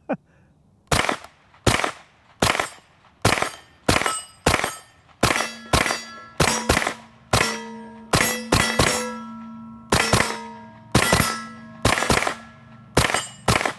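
Stribog SP9A3G 9mm carbine firing a long string of shots, about two dozen, at a quick pace, some as double taps, starting about a second in. Steel gong targets clang and ring after the hits.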